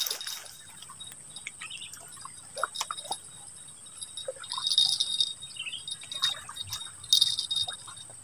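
Quiet riverside ambience with a faint steady high-pitched whine, scattered small clicks and two short rustles, from the angler handling his fishing rod and line.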